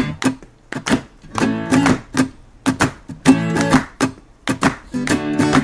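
Background jingle music between sung lines: a guitar strumming chords in a steady rhythm.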